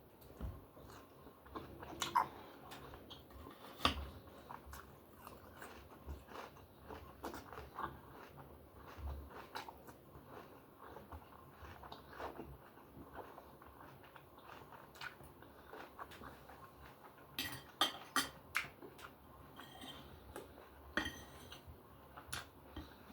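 Close-miked eating: chewing steak, with a fork and knife clinking on a plate. A run of sharper clinks comes about two-thirds of the way in.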